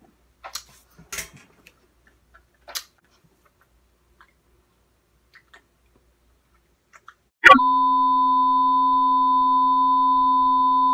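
A few faint clicks and rustles, then about seven and a half seconds in a TV colour-bar test tone cuts in suddenly: a steady, loud high beep with a fainter lower tone under it, held without change.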